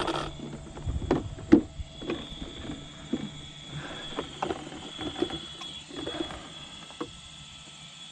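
Hands handling a radio-controlled car's hard plastic body shell, unclipping it and lifting it off the chassis: scattered clicks and knocks, the loudest about a second and a half in.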